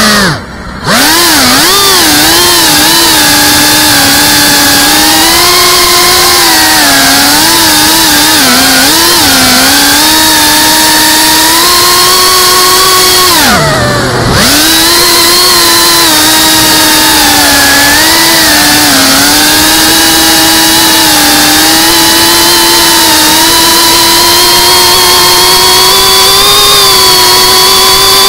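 FPV racing quadcopter's electric motors and propellers whining, recorded on board; the pitch rises and falls constantly with the throttle. The whine drops away sharply just after the start, and dips sharply again about halfway through before climbing back.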